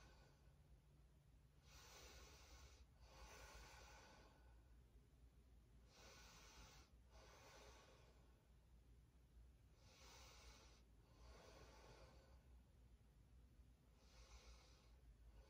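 Faint, slow breathing of one person: four breaths, each an in-breath followed by an out-breath, about four seconds apart, over near-silent room tone.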